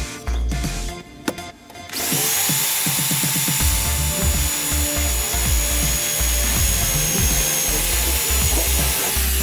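Electric drill running steadily, drilling a fixing hole through a steel butterfly latch plate on a flight case. It starts about two seconds in and carries a steady high whine. Background music with a pulsing bass plays underneath.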